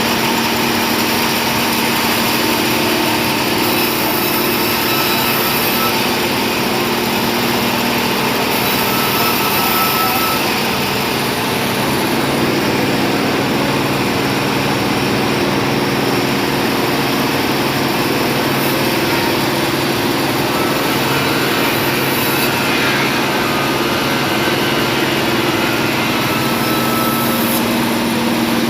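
Machinery running steadily, an engine-like hum that holds the same pitch throughout, typical of sawmill equipment such as a forklift or an engine-driven bandsaw.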